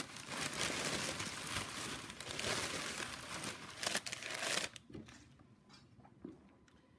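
Packing paper being pulled out and crumpled, crinkling and rustling for about four and a half seconds, then dropping to a few faint rustles.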